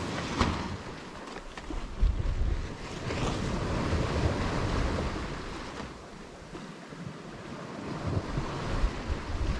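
Wind buffeting the microphone on the deck of a sailboat at sea, over the rush of water along the hull. It rises and eases in gusts, with a couple of sharp gusts in the first two seconds.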